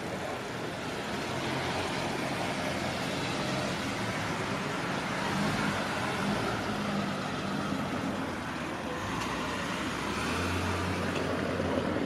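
Road traffic crossing a railway level crossing: cars driving slowly over the tracks with engine and tyre noise. A deeper engine drone comes near the end as a minivan crosses.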